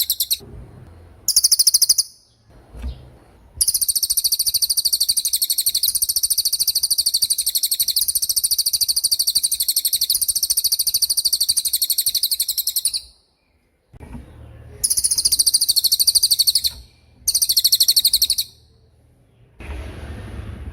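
Cililin songbird singing its 'tembakan' song: a very fast, high, rattling trill delivered in bursts, the longest lasting about nine seconds, with short pauses between.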